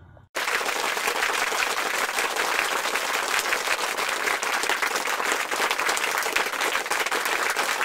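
Crowd applause, many hands clapping in a dense, steady patter that starts abruptly a moment in.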